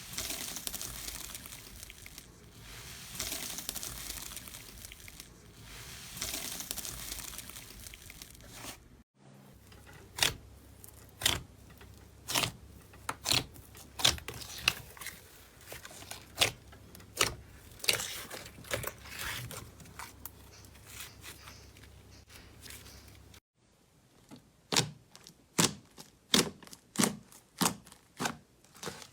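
Slime being squeezed and pressed by hand: first a crinkling, crackling rustle that swells and fades a few times, then a string of sharp wet pops about once a second, and for the last few seconds quicker pops about two a second.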